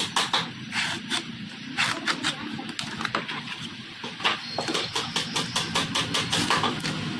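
Sandpaper rubbed by hand over a plywood board in short, quick, uneven strokes, over a steady low hum.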